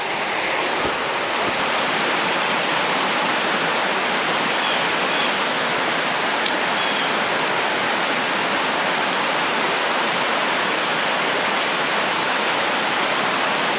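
Mountain creek water rushing steadily, close and loud.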